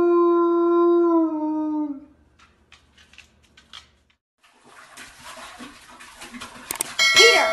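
A dog howling: one long, high howl that drops in pitch and dies away about two seconds in. After a short quiet gap, a dog lapping and splashing water in a toilet bowl.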